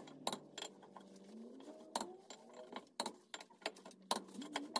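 A torque wrench tightening a VW Beetle's wheel to 72 ft-lbs: a string of sharp metallic clicks at irregular intervals.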